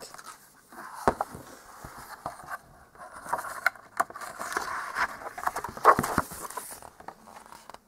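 Pages of a hardcover picture book being turned by hand: paper rustling and sliding, with scattered light clicks and taps as the cover and pages are handled. It stops near the end.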